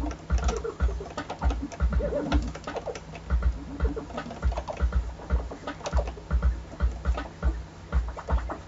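Vinyl record scratching on a turntable: short chirping pitch sweeps chopped by quick crossfader clicks, played over a backing beat with a deep kick drum.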